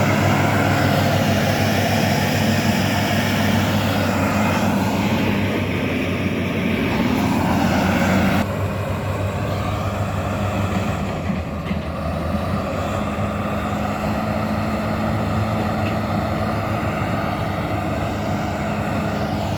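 Diesel engine of heavy earthmoving machinery running steadily with a low drone, changing abruptly about eight seconds in.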